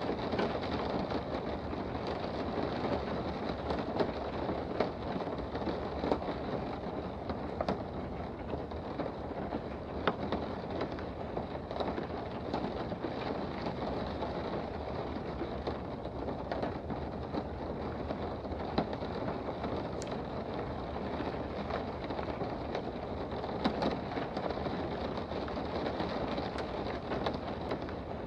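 Steady rain heard from indoors, a continuous wash with scattered sharp ticks of individual drops.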